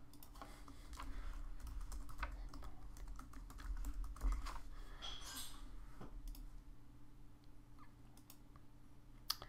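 Computer keyboard typing: a quick run of key clicks through the first half, thinning out later, with a single sharp click near the end.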